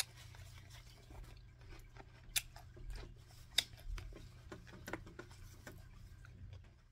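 Close-up eating sounds: quiet chewing with scattered small clicks and taps, two sharper clicks about two and a half and three and a half seconds in, over a low steady hum.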